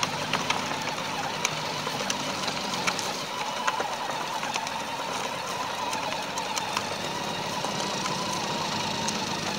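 Electric drive motor and gearbox of a battery-powered ride-on toy kart whirring steadily as it drives along, with scattered crunches and clicks from gravel.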